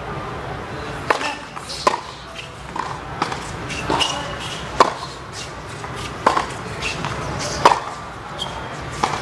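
Tennis ball struck by rackets and bouncing on a hard court during a serve and rally: a string of sharp pops roughly every half second to second, some loud and close, some fainter from the far end.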